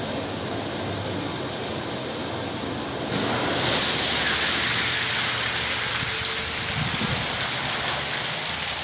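Water from a fire hydrant rushing into a water truck's tank: a steady hiss that suddenly grows louder about three seconds in.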